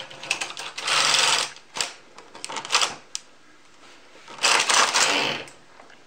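Carriage of a Brother KH-260 bulky knitting machine pushed across the needle bed, knitting the first row off a latch-tool cast-on. It makes a mechanical clatter in two loud spells, about a second in and again near five seconds, with a few clicks between.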